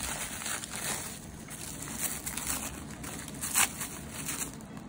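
Soft rustling and crinkling from handling nail-art supplies, with a few light clicks and ticks, the clearest about three and a half seconds in.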